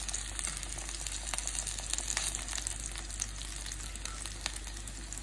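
Chicken tikka sizzling as it cooks, a steady hiss with frequent small crackling pops.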